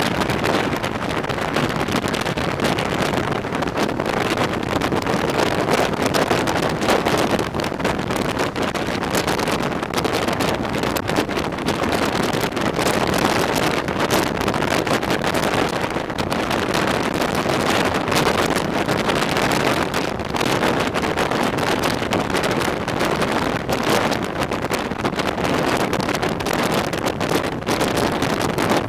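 Wind buffeting the microphone at the open window of a moving passenger coach, steady and loud, over the running noise of the train.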